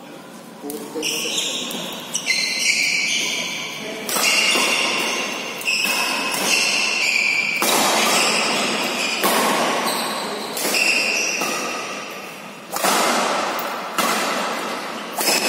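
Badminton rackets striking the shuttlecock in a fast doubles rally, a sharp ringing hit about every second or so, echoing around the hall.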